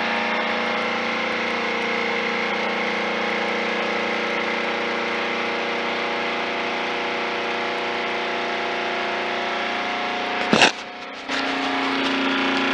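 Warco metalworking lathe running steadily, its headstock gearing giving a whine of several steady tones as it spins a Lucas dynamo under test. About ten and a half seconds in there is a sharp clack and a brief drop, and then it runs again at a changed pitch.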